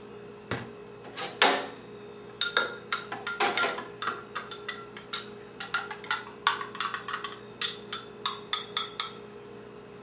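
A couple of knocks, then a metal spoon stirring coffee in a drinking glass, clinking quickly and unevenly against the glass for about six seconds before stopping near the end.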